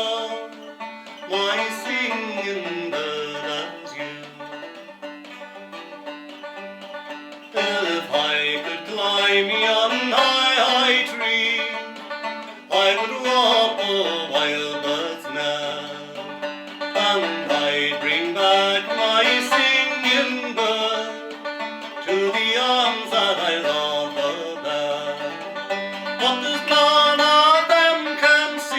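Instrumental break of a slow folk ballad, played as a melody on plucked string instruments.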